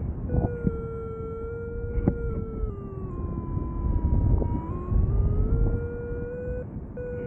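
Paragliding variometer giving a continuous electronic tone that slides slowly down and back up in pitch as the rate of climb or sink changes, breaking off briefly twice. Under it, wind rushes on the microphone.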